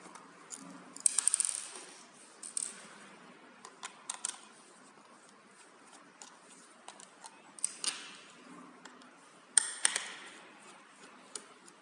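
A screwdriver working small screws out of a solar light's plastic battery box: faint scraping and ticking, with about five sharp metallic clinks that ring briefly, the loudest about a second in and again late.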